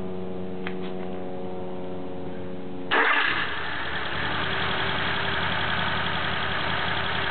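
A steady hum, then about three seconds in the 2.4-litre dual-plug four-cylinder engine with TWM individual throttle bodies fires up with a sudden loud burst and settles into a steady idle.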